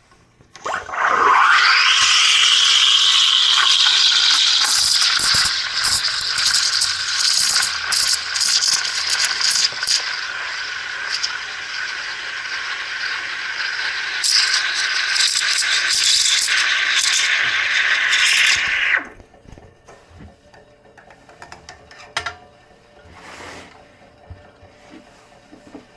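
Olympia Cremina SL steam wand hissing into a pitcher of water and dishwasher soap. The steam comes on with a rising hiss about a second in, runs loud and steady with crackling as the liquid froths, and cuts off suddenly about three quarters of the way through.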